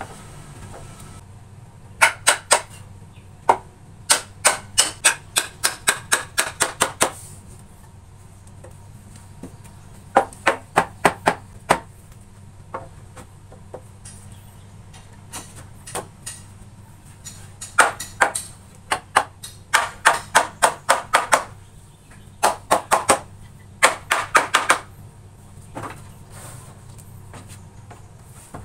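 Hammer tapping on wood in quick runs of sharp knocks, about five or six a second, in bursts with short pauses between, over a steady low hum.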